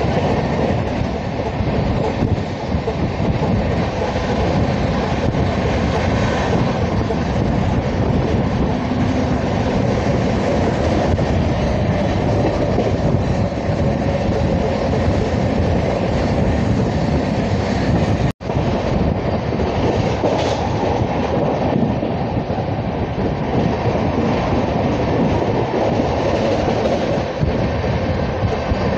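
Indian Railways express train running at speed, heard from an open coach door: a steady, loud rumble of wheels on the rails. The sound cuts out for an instant about two-thirds of the way through.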